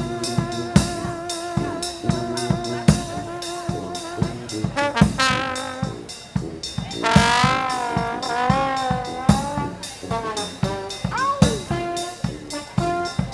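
Brass band playing jazz, with trumpet and trombone over a drum kit. A horn holds a wavering note midway, and a note slides down near the end.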